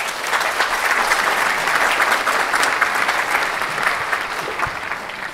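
Audience applauding: a dense, steady clapping of many hands, easing slightly near the end.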